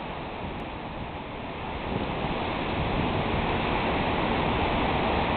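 Hurricane wind and rain: a steady rushing roar that grows louder about two seconds in, buffeting the microphone.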